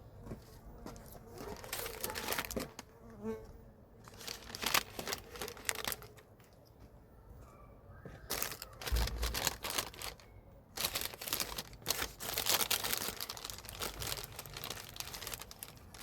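Rustling and crinkling handling noise in irregular bursts, with quieter gaps, as seed potatoes are handled and taken out.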